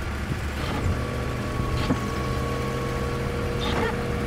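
Air suspension compressor on a BMW E46 running with a steady whine as the car airs up to ride height, over the low hum of the idling engine.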